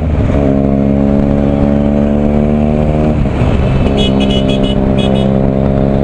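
Benelli motorcycle engine pulling on the move, its pitch climbing slowly and dipping briefly twice, near the start and about three seconds in. A horn beeps several short times about four to five seconds in.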